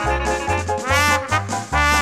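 Upbeat swing-style theme music led by brass horns, with sliding notes over a bouncing bass line of about three notes a second.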